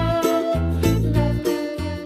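Background music: a jingly melody over a bass line that changes note about twice a second.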